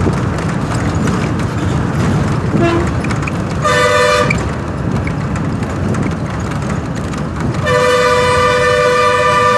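Two blasts of a two-tone horn, a short one about three and a half seconds in and a longer one held through the last two seconds, over the steady rumble of a moving vehicle crossing the bridge.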